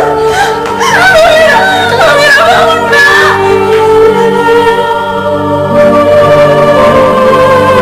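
Sad background music with a wordless, wailing voice sliding over sustained chords for the first few seconds, then held notes over the chords.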